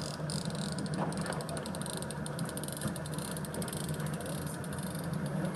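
Boat engine running with a steady low hum, under an even hiss of water and wind noise.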